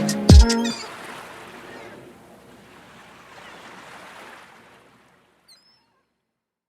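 Final hit of a gospel song's backing track: a deep bass drop and chords that stop under a second in, followed by a soft hissing wash that fades out over about four seconds, then silence.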